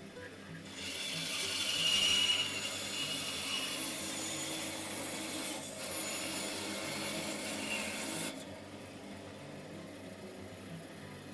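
Bandsaw blade cutting through a block of wood in a test cut with newly fitted wooden blade guides: a steady rasping hiss that starts just under a second in, falters briefly partway through and stops abruptly near the end, leaving the saw running.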